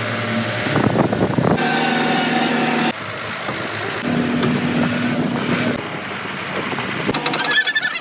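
Heavy diesel machinery running, in several short edited segments that change abruptly every second or few, some with a steady engine hum.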